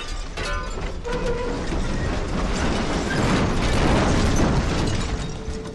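Dense rattling, clattering noise that builds to a peak about four seconds in and dies away near the end.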